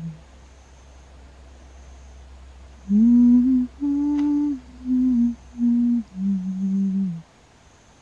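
A person humming a slow lullaby tune: after a pause of about three seconds, six or so held notes rise and fall, ending with a lower long note near the end.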